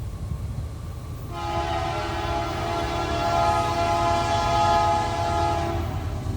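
Locomotive air horn sounding one long chord-like blast of about four and a half seconds, starting about a second in, over the steady rumble of a train on the rails.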